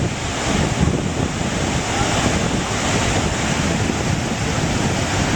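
Niagara Falls' water pouring down in a steady, loud rush, with wind buffeting the microphone.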